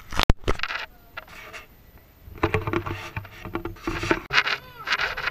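Kayak paddling: a series of short splashing strokes of the paddle in the water, coming about every half second in the second half. A single sharp click sounds just after the start.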